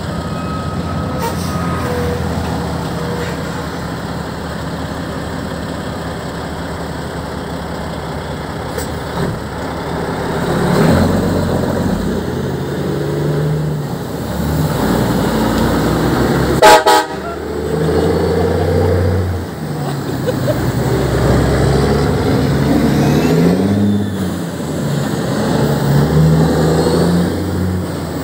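Semi-truck diesel engine idling, then pulling away and working up through the gears, its pitch climbing and dropping with each shift. About two thirds of the way through comes one short, loud air-horn blast.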